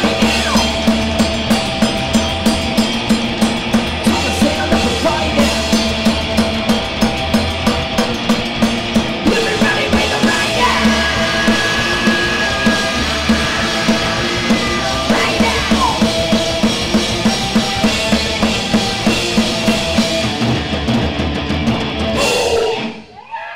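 Punk rock band playing live: drum kit pounding a steady fast beat under electric guitar and bass guitar. The song ends abruptly near the end, leaving a brief ringing tail.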